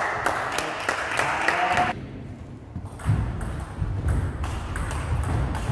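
Table tennis rally: the ball clicking sharply off the paddles and the table in quick succession from about three seconds in, with the players' footwork thudding on the wooden floor. A short stretch of noise fills the first two seconds.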